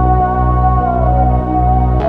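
Background music: soft ambient synthesizer chords over a steady bass pulse.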